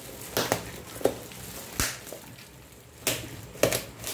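Black plastic courier bag crackling as it is handled and pulled open by hand, in about half a dozen short, sharp crinkles, the loudest about three seconds in.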